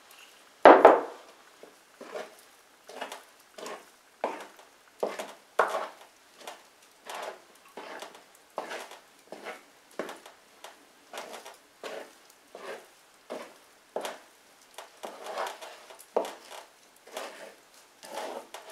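Wet, sticky bread dough being stirred and beaten by hand in a large earthenware bowl, a short squelching stroke a little under twice a second. There is one loud knock near the start.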